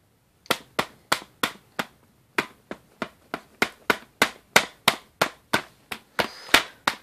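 A baby's hand slapping the red plastic lid of a large plastic animal crackers jar, a run of about twenty sharp pats at roughly three a second, starting about half a second in.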